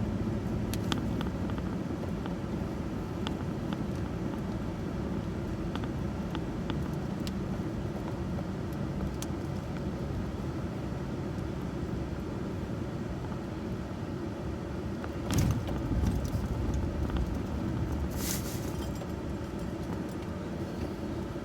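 Truck driving slowly, a steady low rumble of engine and road noise heard from inside the cab, with scattered light ticks. Two louder brief rustling bursts come about 15 and 18 seconds in.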